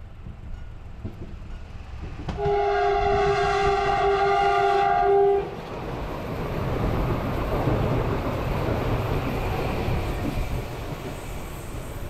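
HŽ series 6112 electric multiple unit sounding its horn in one steady blast of about three seconds, a couple of seconds in. The rumble of the train passing close follows, then eases as it runs away.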